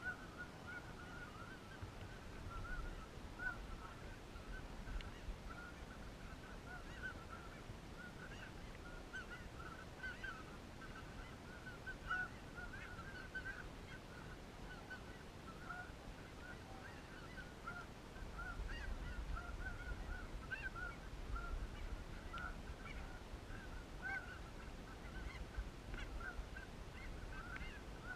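A flock of geese honking at a distance: many short honks overlapping continuously and faintly. A low rumble joins about two-thirds of the way through.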